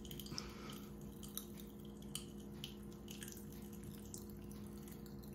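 Popping candy crackling in the mouth: faint, irregular little pops and snaps, over a steady low hum.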